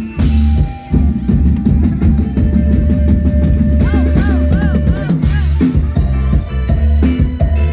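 Live band music with a heavy bass and drum-kit beat, with a high melody that bends up and down several times about halfway through.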